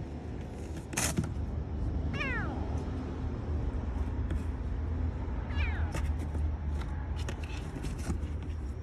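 Young kitten meowing twice, each call falling in pitch, over a steady low rumble. A sharp click sounds about a second in.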